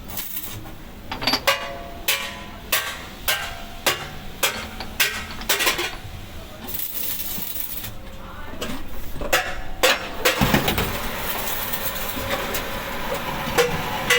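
Metal struck repeatedly: sharp metallic clanks about twice a second, with a short hiss in between. After about ten seconds a steadier, denser mechanical noise takes over, with clanks still showing through.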